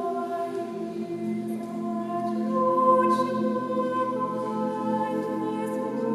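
Small mixed choir of eight voices singing a cappella: long sustained chords, with a higher note coming in about halfway through.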